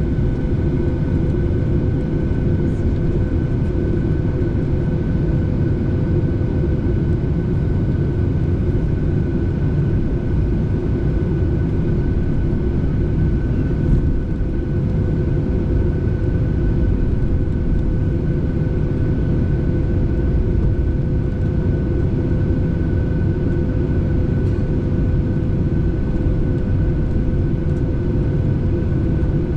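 Steady roar of an airliner's engines and airflow heard from inside the passenger cabin, with two faint steady whining tones over it.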